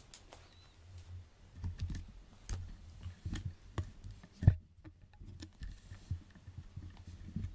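Irregular light clicks and soft knocks of a cat moving about on a wooden floor right next to the camera, with its paws and body bumping close to the microphone. One sharp, loud knock comes about four and a half seconds in.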